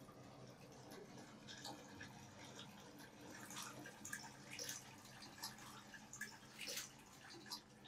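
Faint, irregular drips of water, denser in the second half, over a low steady hum.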